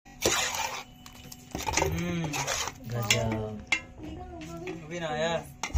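A spoon scrapes and clinks against a metal cooking pot, with a person's voice, no clear words, over it.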